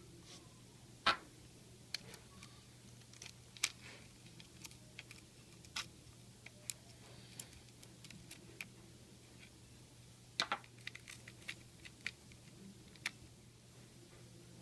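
Irregular small clicks and taps, with louder ones about a second in and about ten seconds in: hands handling the plastic casing and parts of a Luvion Grand Elite baby monitor while its battery is being replaced.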